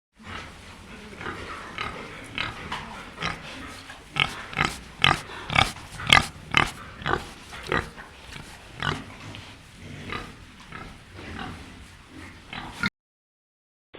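Pig grunting, a quick run of short grunts that grow louder and closer together in the middle and then stop suddenly.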